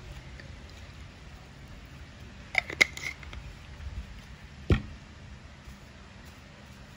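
Acetone pump dispenser pressed with a cotton pad: a quick cluster of sharp plastic clicks about two and a half seconds in, then a single duller knock a couple of seconds later.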